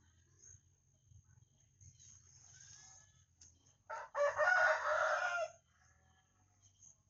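A rooster crowing once, about four seconds in, a loud call lasting under two seconds.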